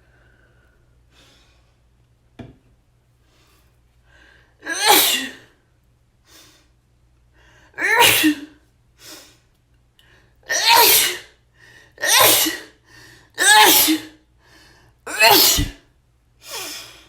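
A person sneezing six times in a row, starting about five seconds in, with quieter breaths between the sneezes. These are allergic sneezes set off by smelling a soap the person is allergic to.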